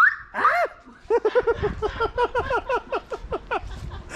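A person laughing hard in a fast, unbroken run of 'ha-ha' bursts, after a short shout about half a second in.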